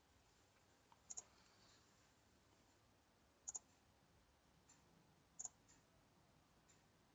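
Computer mouse button clicked three times, about two seconds apart, each a quick double tick of press and release, faint over a low hiss.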